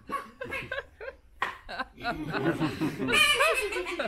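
Audience laughing and chuckling, swelling into louder laughter from many people about two seconds in.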